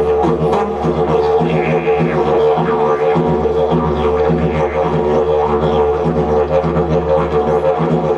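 Two didgeridoos played live together: an unbroken low drone with a stack of overtones, pulsed rhythmically by the players' mouths and voices.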